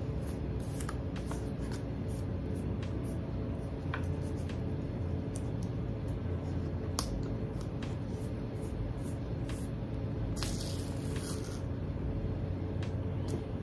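Fingers handling a round bottle and pressing a sticker label onto it: scattered small clicks and rustles, with a brief louder rustle about ten and a half seconds in, over a steady low room hum.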